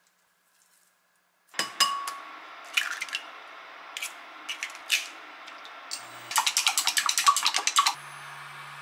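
Eggs tapped and cracked on the rim of a glass measuring cup: a sharp knock with a short ring, then scattered clicks. About six seconds in they are beaten fast with chopsticks, a rapid clatter against the glass. Near the end this gives way to a steady faint hiss with a low hum.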